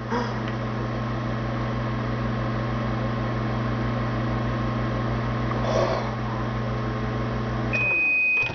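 Microwave oven running with a steady hum, then shutting off near the end with a single long beep as its heating cycle finishes.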